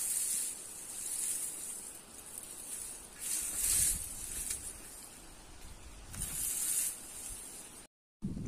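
Four hissing bursts, each about a second long, as a cloud of white smoke is puffed into the wire-wrapped tree trunk.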